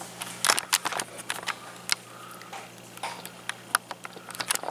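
Irregular clicks and light knocks, a dozen or more, from handling, over a steady low electrical hum.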